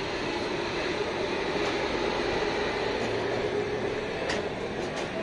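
Train running on the rails, a steady running noise with a faint hum, and a few sharp clicks near the end.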